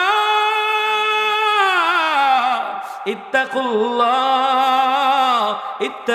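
A man's voice singing two long drawn-out notes without clear words, each sliding down in pitch at its end; the second starts about three seconds in. This is the sung, chanting delivery of a Bengali waz sermon.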